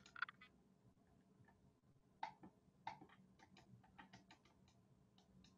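Faint, scattered clicks of a computer mouse, about a dozen, most of them from about two seconds in, over a near-silent room.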